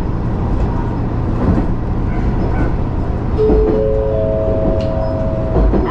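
Matsuura Railway diesel railcar running, with a steady low drone from the engine and wheels. About halfway through, a three-note rising chime sounds, each note held so that the notes overlap; this is the in-car chime that introduces an onboard announcement.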